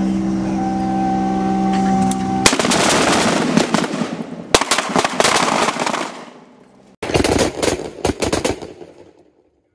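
M4 carbines firing 5.56 mm rounds in rapid, overlapping shots from several rifles: a dense string lasting about three and a half seconds, then a second, shorter string after a brief pause. A steady hum is heard before the shooting starts.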